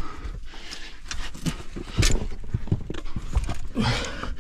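Irregular knocks and scrapes of boots on rock as someone clambers through a mine tunnel, the loudest knock about two seconds in, with a short grunt near the end.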